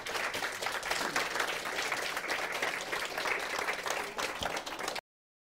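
Audience applauding, a dense patter of many hands clapping, which cuts off suddenly about five seconds in.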